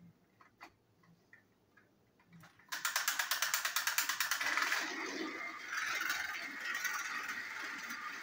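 Battery-powered motorized toy trains switched on and running on plastic track. A rapid, even gear clatter starts suddenly about two and a half seconds in, then settles into a steady whirring rattle.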